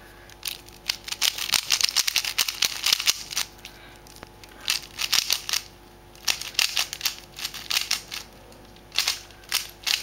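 Rubik's cube being turned by hand: runs of rapid plastic clicking and scraping as the layers turn, about five runs with short pauses between them.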